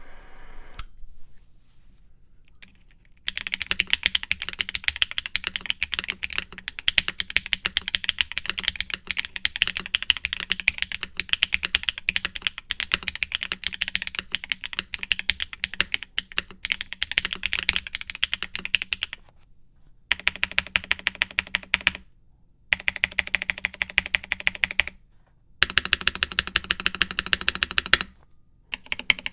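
Fast typing on a Mode Sonnet custom mechanical keyboard with BSUN BCP switches, GMK keycaps, an aluminium plate and an isolated top mount, giving crisp clacky keystrokes. The typing starts about three seconds in and runs steadily for about sixteen seconds, then comes in three shorter runs with brief pauses between them.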